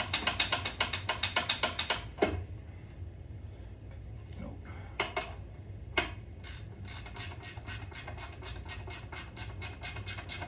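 Hand ratchet clicking as it turns out a small 7/16 bolt: a fast run of loud clicks for about two seconds, a few single clicks, then a steadier, fainter run of clicking through the second half.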